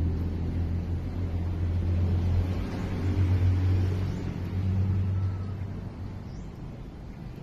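Low, steady engine hum with a deep drone, swelling in the middle and fading away from about six seconds in.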